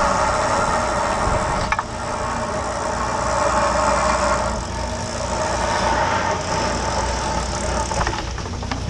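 Boat engine and hydraulic crab-pot hauler running steadily as line is pulled in, with a few knocks near the end as the crab pot comes up over the rail.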